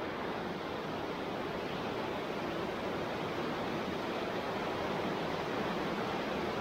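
Steady rushing of flowing water in a concrete sewer tunnel, growing slightly louder.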